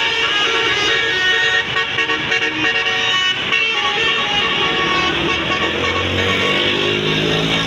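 Tour bus Basuri 'telolet' multi-tone air horn playing a quick tune of stepped notes. Music with lower, steadier notes comes in during the second half.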